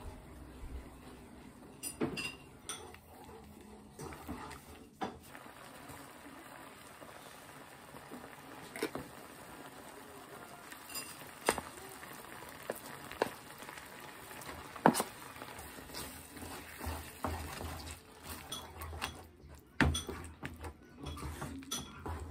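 A wooden spatula stirring and scraping a thick creamy mixture in a coated frying pan, with scattered clicks and knocks of wood against the pan over a soft, steady simmer. Partway through, mashed pumpkin is scraped in from a plastic container and stirred through.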